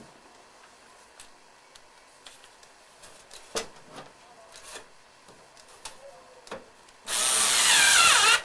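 Small clicks and taps of handling, then about seven seconds in a power screwdriver runs for just over a second, its whine falling in pitch as it drives a screw to fix the hard drive in its bay.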